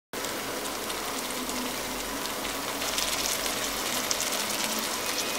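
Sliced onions frying in oil in a wok, a steady sizzle with fine crackling, with a dollop of garlic paste just added on top. It cuts in abruptly at the start.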